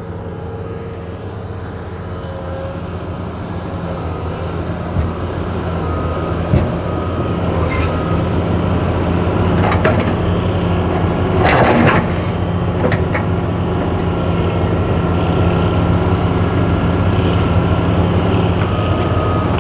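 Caterpillar hydraulic excavator's diesel engine running under load, a steady drone that grows louder as the boom and thumb work, with a few knocks and scrapes as a large rock is set down in the pond shallows.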